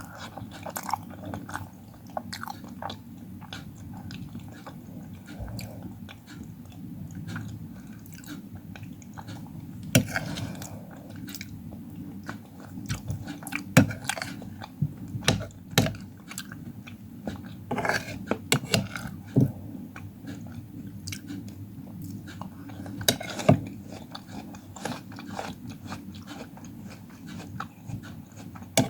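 A person chewing and biting fruit close to the microphone: irregular wet mouth clicks and crunchy bites, with a few louder crunches scattered through, over a steady low hum.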